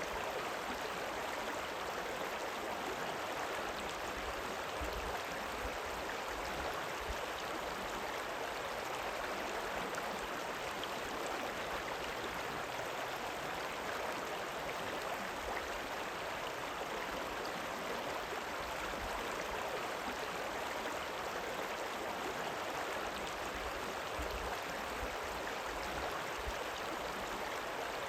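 River water rippling steadily: an even, unbroken wash of running water.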